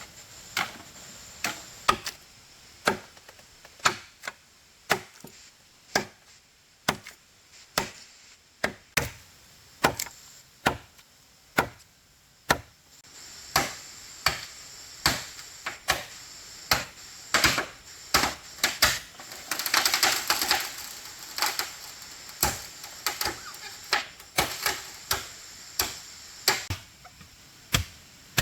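Repeated chopping strikes of a blade into wood, about one to two a second, with a denser, noisier stretch about twenty seconds in.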